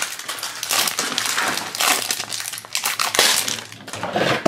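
Plastic wrapper crinkling and crackling in irregular bursts as it is peeled and torn off a blind-bag toy container.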